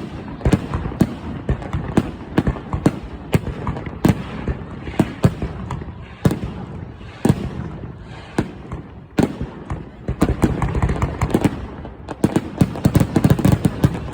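Fireworks bursting overhead: a steady stream of sharp, irregular bangs, with a dense rapid run of crackling reports near the end.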